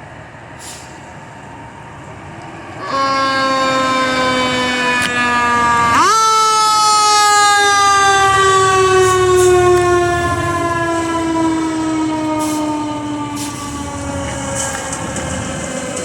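Fire truck's mechanical siren. It sounds a steady tone from about three seconds in, winds up sharply to a higher pitch about three seconds later, then slowly coasts down in pitch, over the low rumble of the truck's engine.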